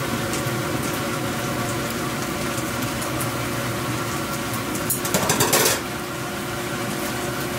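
Kitchen range hood fan running with a steady whirr, and a short burst of noise about five seconds in.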